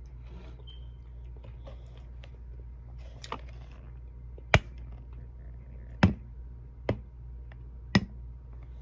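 Handheld phone handling noise: five sharp taps and knocks over a steady low hum, the loudest a little before the middle.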